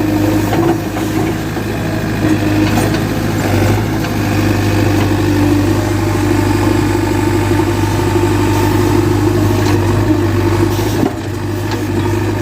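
JCB backhoe loader's diesel engine running steadily, dipping briefly about eleven seconds in.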